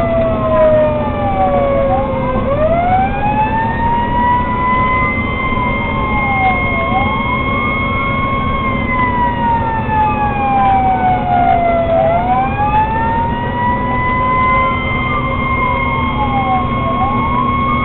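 Fire engine sirens wailing over a steady engine drone, as the fire apparatus runs to a call. Two wail cycles run out of step, each rising quickly, holding high, then sliding slowly down, over and over.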